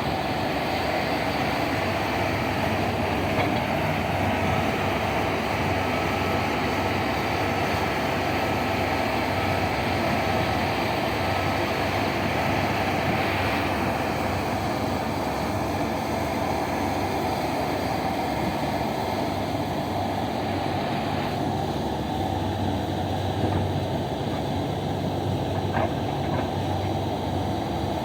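Heavy mining machinery running: the diesel engines of an excavator loading haul trucks make a steady drone with a deep hum. The higher part of the noise falls away about three-quarters of the way through.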